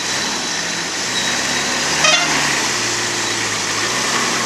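Engine of a Toyota Hilux pickup running at low revs as it creeps over a rough, muddy dirt track. A brief high-pitched tone sounds about two seconds in.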